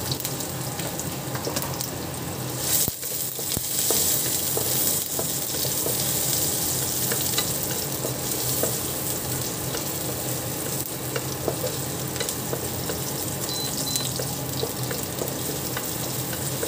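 Finely chopped onion sizzling in a little hot oil in a steel kadhai, with a wooden spoon stirring it around the pan. A steady frying hiss, dotted with small spatters and spoon scrapes.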